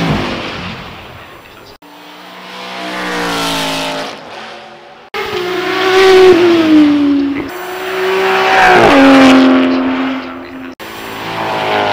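High-performance car engines accelerating hard past one after another, in clips joined by abrupt cuts. Each engine note climbs in pitch and then drops and fades as the car goes by.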